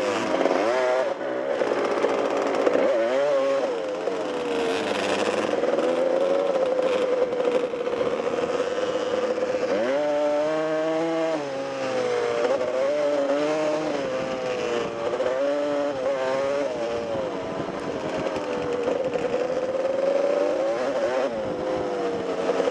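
Two-stroke dirt bike engine running and being revved, its pitch rising and falling, with a sharp rise in revs about ten seconds in.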